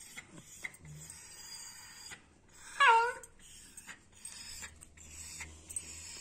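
A dog gives one short, high yelp that falls in pitch about three seconds in, as its infected, inflamed ear is being swabbed clean with cotton. Faint rubbing and rustling of handling go on around it.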